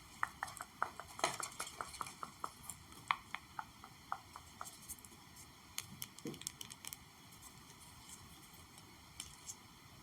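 Gentle tapping: a quick run of light, sharp taps for the first few seconds, then a few scattered taps and a soft low thud about six seconds in, and two faint taps near the end.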